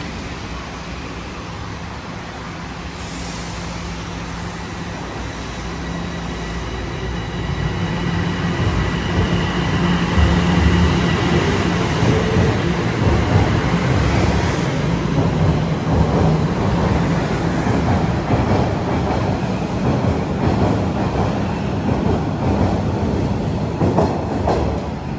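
TTC Line 1 subway train moving along the track through the station: a loud rumble of wheels on rail that swells about eight seconds in, with a steady high electric whine.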